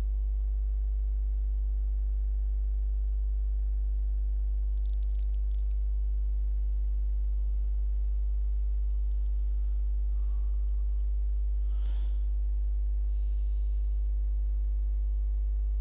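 Steady low electrical mains hum with its evenly spaced overtones, with a few faint, brief soft noises over it.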